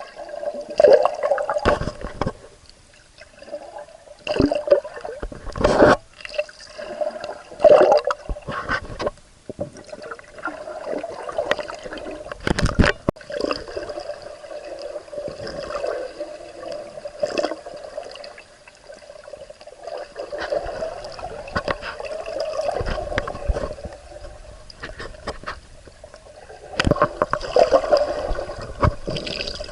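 Water splashing and gurgling in uneven bursts, with sharp louder splashes every second or two, as from swimming strokes in open water.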